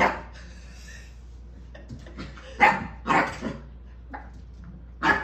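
Aussie Mountain Doodle puppy barking in short, sharp yaps, about four in all, the loudest about two and a half seconds in.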